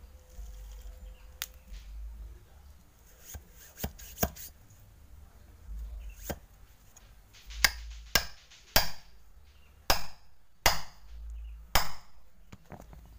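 Sharp knocks of a metal tamping rod being driven down inside a paper firecracker-rocket tube, packing the clay plug at its end. The knocks come singly and sparsely at first, then louder and closer together in the second half.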